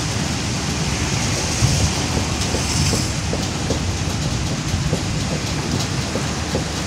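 Heavy rain falling in strong wind: a steady loud rush, with a low, uneven rumble of wind buffeting the microphone.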